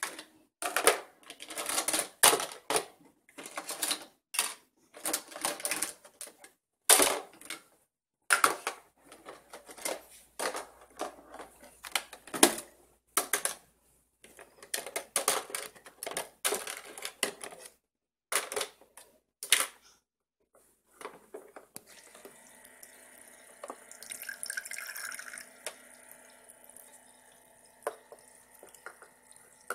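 Plastic toy dishes and utensils clattering and knocking in a toy kitchen sink and dish rack. After about twenty seconds the clatter stops and a thin stream of water runs from the toy sink's faucet into the basin.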